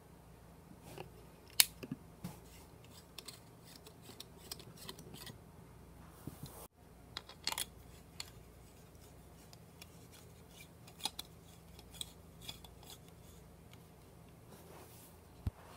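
Scattered light clicks and taps of compact fluorescent bulbs being handled, plastic bases and glass tubes knocked and rubbed by hand, over a faint steady hum. The sharpest click comes about one and a half seconds in.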